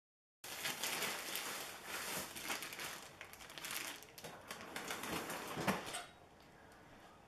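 Plastic zip-top freezer bag crinkling and rustling as frozen venison is pulled from a freezer drawer, ending with a knock as the freezer is pushed shut.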